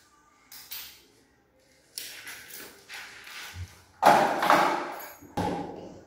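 A series of knocks and thumps, the loudest about four seconds in and another just after five seconds, each dying away within about a second.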